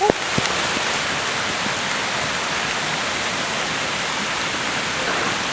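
Heavy rain pouring down, a steady even hiss of drops.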